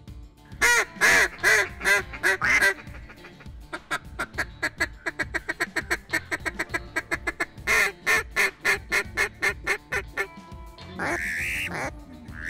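Hunter's mallard duck call blown in loud runs: a series of quacks, then a fast even string of short notes like a feeding chuckle, then another series of quacks. Near the end comes one long rising note.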